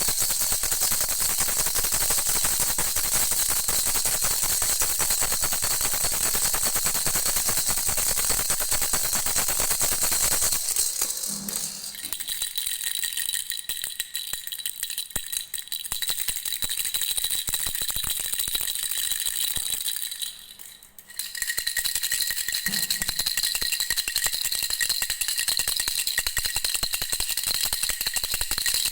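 Baby's bell rattle (jhunjhuna) shaken continuously in a dense, steady rattle. About ten seconds in the sound changes to a lighter jingle with ringing bell tones, which pauses briefly around twenty seconds in and then starts again.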